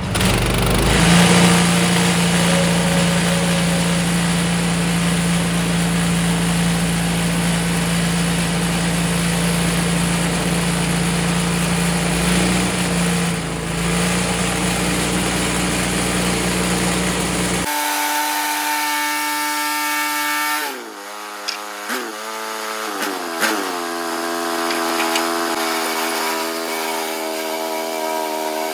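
Portable band sawmill's gas engine running steadily under load as the blade cuts through a poplar log. About 18 seconds in the sound changes abruptly, and a few seconds later the engine's pitch falls in a few steps before it settles.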